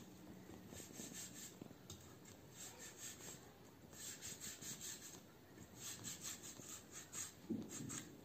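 A plastic bag of food crinkling and rustling in short bursts as hands work with it.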